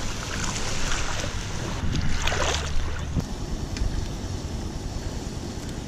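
Wind buffeting the microphone outdoors: a steady, fairly loud rush with a low rumble.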